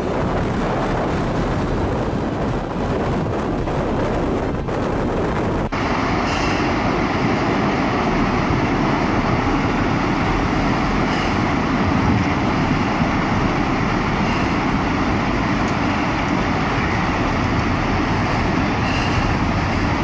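Steady rushing roar of a tornado's wind. About six seconds in it cuts abruptly to a duller, steady rush of wind and churning sea as a tsunami wave builds offshore.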